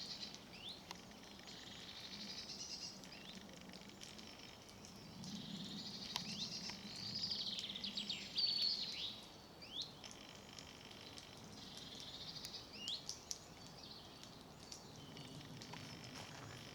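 Songbirds singing: bouts of quick twittering phrases with short rising whistled notes, repeating every few seconds, over a steady low background hum.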